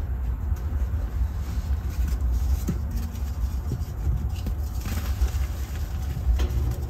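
Hands crumbling pressed gym chalk reforms in a heap of loose chalk powder, with faint irregular crunches that are plainest in the second half. Beneath them runs a steady, louder low rumble of background noise.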